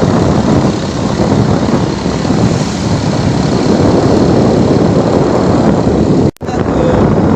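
A vehicle travelling on an unpaved, potholed dirt road: a steady rumble and rush of engine and road noise. It cuts out for a moment about six seconds in.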